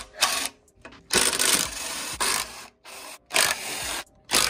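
Cordless impact driver with a socket extension spinning out the side-cover bolts of a small single-cylinder mini bike engine, running in about half a dozen short bursts with brief pauses between them.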